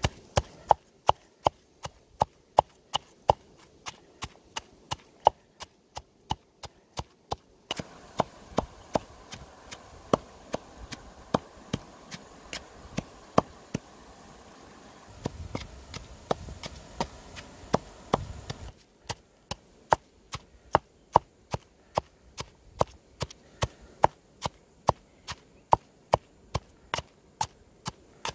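Wooden pestle pounding salt, red chillies and garlic in a clay mortar: a steady rhythm of sharp knocks, about two a second.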